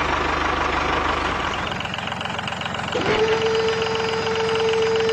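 Mini tractor's small engine running steadily just after starting, with an even firing rhythm. About three seconds in, a steady single tone comes in and holds.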